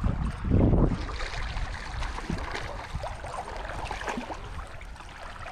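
River current rushing and splashing around a wading angler's legs while a hooked trout is played in, with small splashes and ticks through it. A brief, louder low rumble comes about half a second in.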